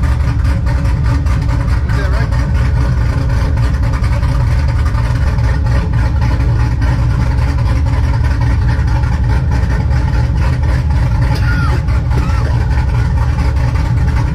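A cammed Chevrolet Silverado 4.8-litre V8 with a BTR Stage 4 truck cam idling, a loud, steady, pulsing exhaust note.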